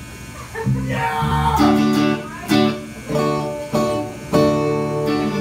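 Live band playing: strummed guitar chords changing about every half second, over bass and drums.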